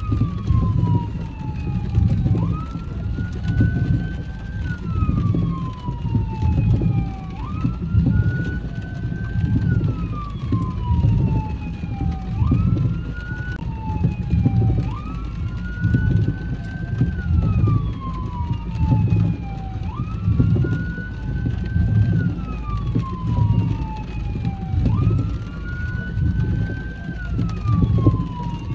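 Emergency-vehicle siren on a slow wail, rising quickly and then gliding down, repeating every few seconds, over low road and engine rumble.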